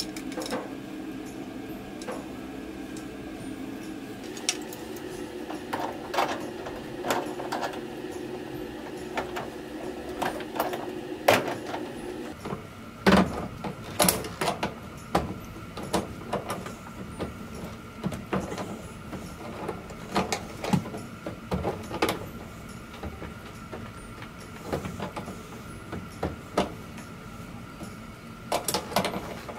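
Scattered clicks and knocks of hand tools working on metal fittings, such as pliers on a washing machine's water inlet hose connectors, with a steady hum in the background.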